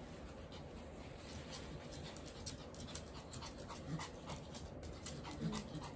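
A dog eating from a hand: an irregular run of small wet mouth clicks and smacks, starting about a second and a half in, with a louder low sound just before the end.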